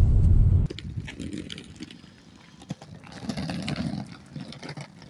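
Low road rumble inside a moving car, cut off abruptly less than a second in. Then, much quieter, footsteps clicking on pavement outdoors.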